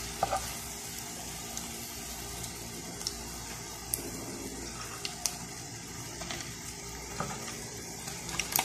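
Shrimp fritters frying in shallow oil in a pan: a steady sizzle with scattered small sharp clicks and pops.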